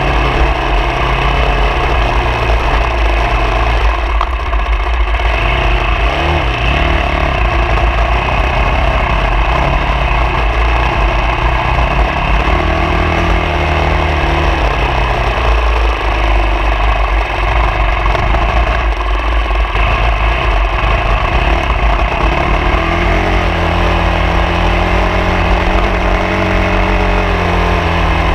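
A vehicle engine running under load off-road, its pitch rising and falling as the throttle changes, over a steady heavy low rumble.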